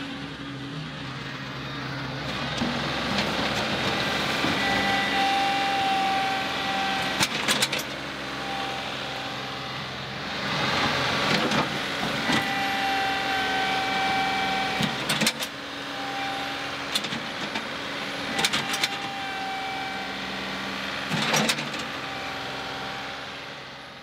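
John Deere 2038R compact tractor's diesel engine running and rising and falling under load as its loader bucket, fitted with a ripper tooth, pushes and rips at a tree stump. A whine comes and goes several times, and there are a few sharp knocks.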